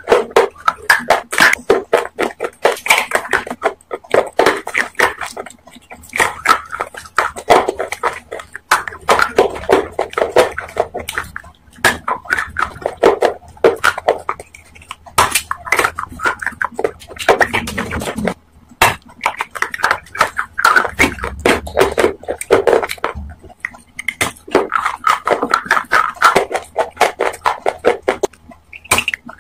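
Close-miked crunching and chewing of hard red chunks: a rapid, crackly run of bites and crunches with brief pauses.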